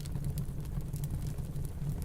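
Wood fire crackling with scattered small pops over a steady low rumble of snowstorm wind.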